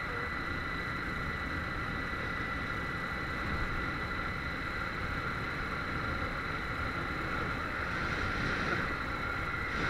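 Harley-Davidson Street 500's V-twin engine running at cruising speed under a steady rush of wind, heard from a helmet chin-mounted camera, with a thin steady high whine over it.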